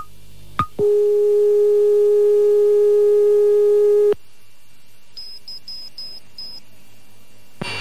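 Medium-wave AM radio broadcast of the Rai Radio2 closedown sequence, heard through a portable receiver. A couple of short clicks come about two thirds of a second apart, then a loud steady tone with overtones holds for about three and a half seconds and cuts off abruptly. Low hiss with a few faint high beeps follows, and a louder noisy hum comes in near the end.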